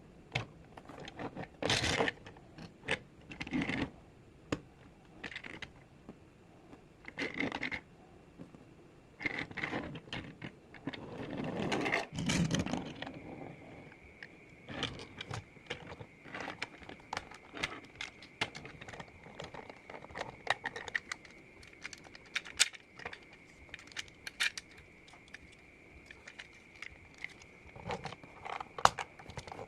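Hard plastic toy parts clicking and scraping as a Transformers Optimus Prime figure is handled, with a longer scraping stretch about halfway through.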